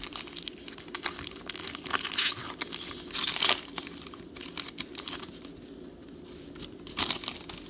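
Packs of 2019 Select football trading cards being torn open and handled: wrappers crinkling, with sharp tearing bursts about two seconds in, around three and a half seconds in, and again near the end.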